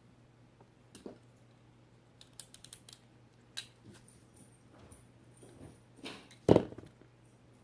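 Small handling noises of thread-seal tape being wrapped onto threaded metal hose fittings: scattered clicks and rustles, with one louder knock about six and a half seconds in, over a faint steady hum.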